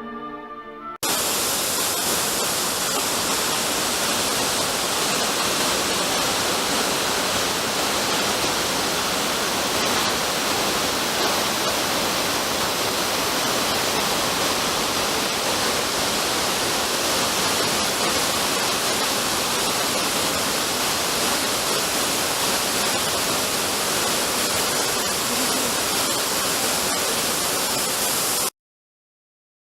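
A waterfall's falling water, a loud, steady rush that starts abruptly about a second in and cuts off suddenly near the end.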